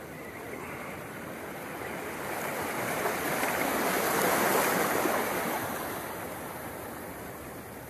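Ocean surf washing in over shoreline rocks, swelling to its loudest about halfway through and then fading.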